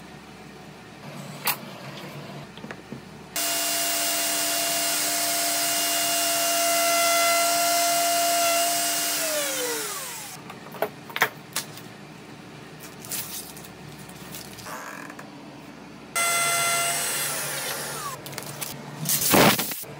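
Festool plunge router running at a steady high whine as it cuts a stitch-inlay mortise through a jig into a wooden slab, then winding down in pitch as it is switched off. Clicks and knocks follow as the router is handled. The router then runs again briefly and winds down, and a loud burst of noise comes near the end.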